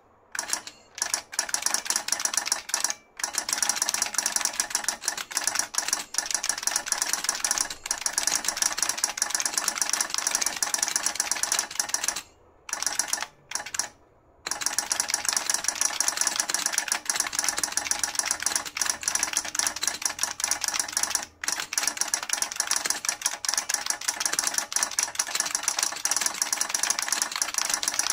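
Rapid, steady typing on a New Model F F77 buckling-spring keyboard with its solenoid on: a dense run of keystroke clacks, broken by a few short pauses near the middle.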